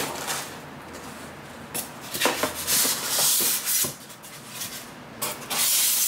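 Foam packing insert and plastic-wrapped parts rubbing and scraping against a cardboard box as it is unpacked, with a few light knocks. It comes in short scraping spells, one about two seconds in and another near the end.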